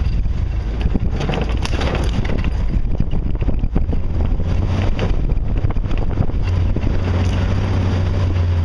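Jeep engine running low and steady as it crawls over a rough, rocky trail, with frequent knocks and rattles from the body and suspension jolting over rocks. The engine rumble grows stronger near the end.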